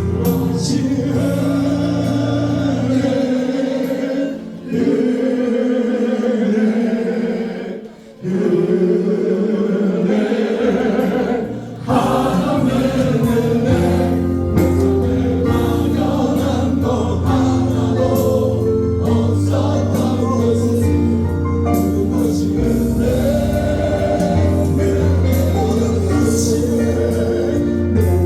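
Gospel praise music with group singing over instrumental accompaniment. The bass drops out for several seconds, with a short lull about eight seconds in, and comes back about twelve seconds in.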